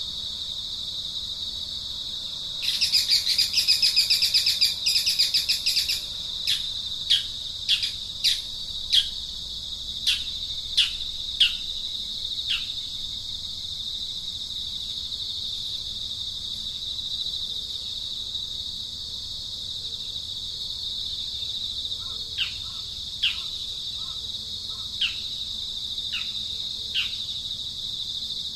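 Steady high insect drone, like crickets, with bird calls over it: a rapid chattering burst a few seconds in, then a series of short, sharply falling whistles, pausing for several seconds in the middle before starting again near the end.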